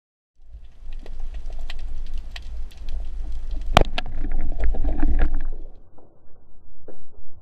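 Underwater sound picked up by a camera on a speargun: a low water rumble with scattered crackling clicks that starts about half a second in, and one sharp, much louder click a little under four seconds in. The rumble fades near the end.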